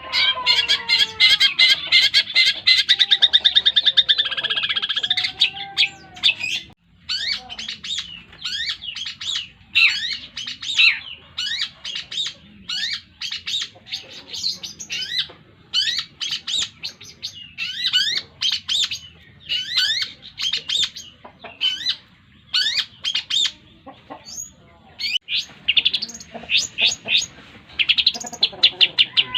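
Long-tailed shrike (cendet) singing loudly: a fast rattling trill for the first few seconds, then a long run of sharp, quickly repeated descending notes. The song is built from mimicked calls, which the title gives as the Javan kingfisher (tengkek buto) and the sparrow (greja).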